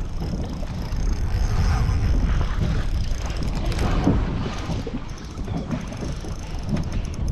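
Wind rumbling and buffeting on the microphone aboard a boat, an irregular low rumble with a faint hiss and no distinct single event.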